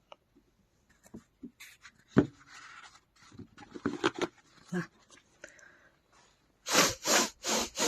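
Dog panting in quick, even breaths, about two and a half a second, near the end, after a spell of small clicks and rustles.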